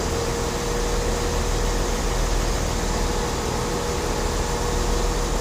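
Class 158 diesel multiple unit idling at the platform: a steady low engine hum with a steady whine above it, the train standing ready to depart.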